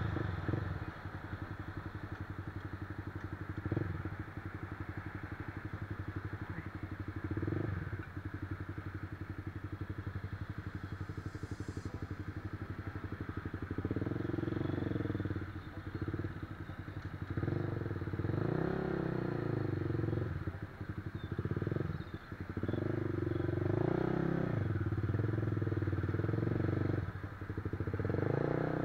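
Motorcycle engine running under way. In the second half the revs rise and fall several times.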